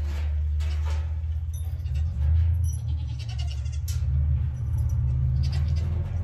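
Dairy goats bleating, with a few sharp clicks of loose metal screws being handled and a steady low hum underneath.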